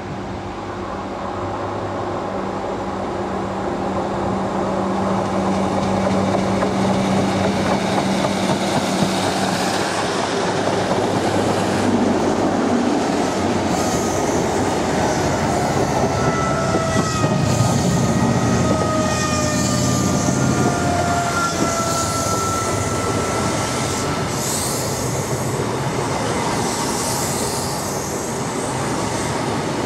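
First Great Western High Speed Train's Mark 3 coaches rolling slowly past close by. A diesel engine's low drone and the rumble of the wheels build over the first several seconds. From about halfway through, wheel flanges squeal in several thin, high, slightly wavering tones over the rumble.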